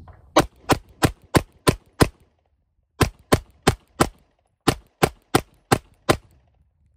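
A 9mm Glock 19 clone (PSA Dagger) pistol firing fifteen shots in three quick strings of six, four and five, about three shots a second. The pistol is cycling every round without a stoppage.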